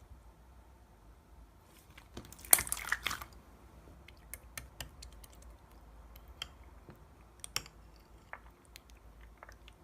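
Clear slime being pressed and worked by hand: a burst of crackling clicks about two and a half seconds in, then scattered small clicks and pops.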